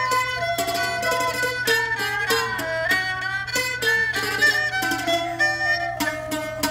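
Thai jakhe, a three-string floor zither, plucked in a quick run of short notes together with a Thai two-string bowed fiddle playing held, sliding notes of the melody.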